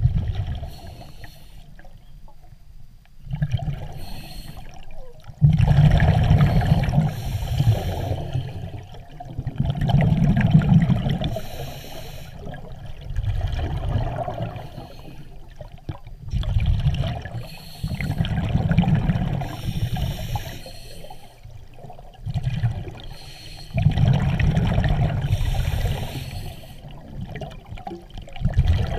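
Scuba diver breathing underwater through a regulator: exhaled bubbles bubbling and gurgling in repeated bursts a few seconds apart, with quieter stretches between breaths.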